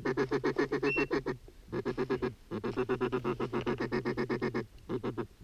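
Ducks' rapid feeding chuckle: long runs of quick quack-like notes, about ten a second, broken by a short pause, with a brief high whistle about a second in.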